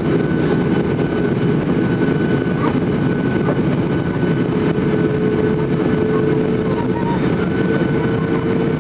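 Steady cabin noise of a Boeing 737 in descent, heard from a seat over the wing: a deep roar of airflow and the engines, with a thin high whine throughout and a lower hum that sets in about halfway through.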